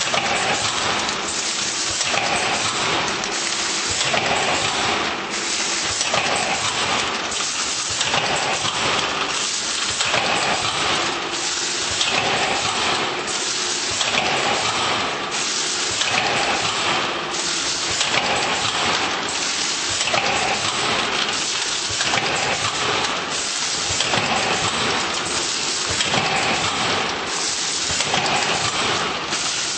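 Vertical form-fill-seal bagging machine running: a loud hiss and clatter that pulses about once a second, a burst with each bag cycle.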